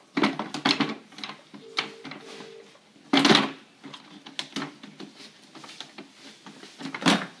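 Hard plastic knocks and clatter as a red plastic mop wringer basket is fitted onto its bucket and the wringer handle is worked. A cluster of knocks comes in the first second, a loud knock about three seconds in, and another near the end.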